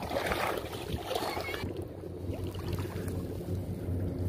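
Steady low wind rumble on the microphone over shallow seawater, with faint splashing and rustling in the first second and a half.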